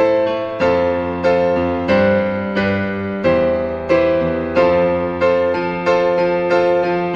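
Background piano music, a gentle melody of struck notes about every half second to second.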